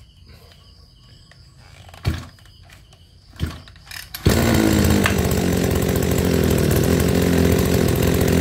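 Kawasaki TJ27 brush cutter's small two-stroke engine being pull-started: two short pulls of the recoil starter, then it catches a little over four seconds in and runs steadily.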